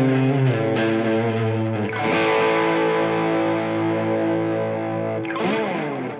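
Electric guitar played through a T-Rex Replicator D'luxe tape echo: a few picked notes, then a chord left ringing for about three seconds, a quick sliding strum near the end, and the sound starting to fade away.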